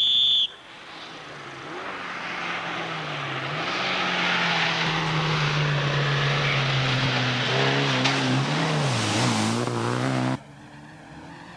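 A short high beep, then a rally car's engine running hard with a loud rush of tyre and road noise that builds up over the first few seconds, its pitch shifting a few times, before cutting off abruptly near the end.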